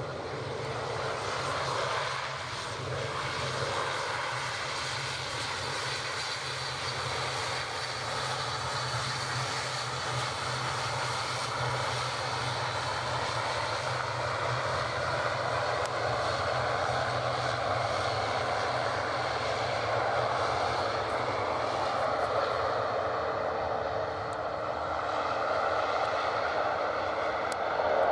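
ATR twin-turboprop airliner taxiing close by: steady drone of its turboprop engines and six-bladed propellers, with a constant low hum underneath, growing louder toward the end.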